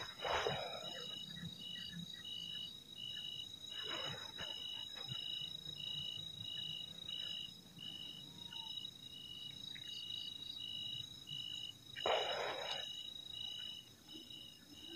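Night insects calling: a steady high-pitched drone with a regular chirp repeating a little more than once a second. A few short rustles or scuffs of footsteps in the undergrowth break in, the loudest about twelve seconds in.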